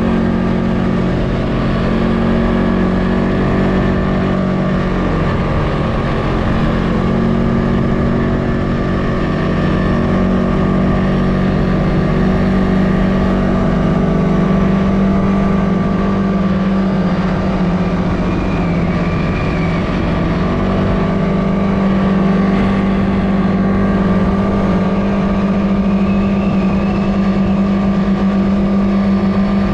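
CFMoto ATV engine running steadily while riding, a constant drone that holds nearly the same pitch throughout.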